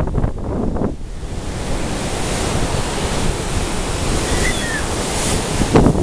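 Sea waves breaking and washing over shore rocks, with wind buffeting the microphone. A short, faint gull call about four and a half seconds in.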